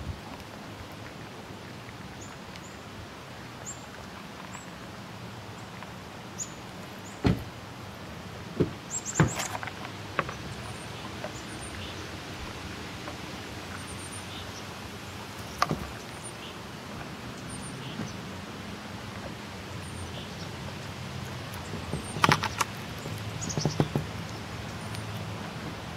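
A chipmunk handling and nibbling peanuts close to the microphone: scattered sharp clicks and crackles, with clusters about ten seconds in and again near the end. Under them runs a steady low hum, with faint short high chirps now and then.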